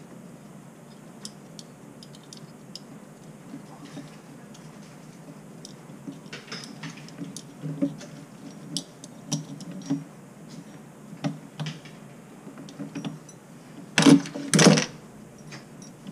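Metal hand tool clicking and scraping against the body of a Moen single-handle kitchen faucet while the cartridge is worked on, as a series of small taps. Two louder metal clanks come near the end.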